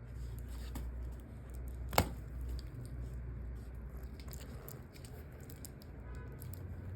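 Faint handling and rustling noises over a low steady hum, with one sharp click about two seconds in.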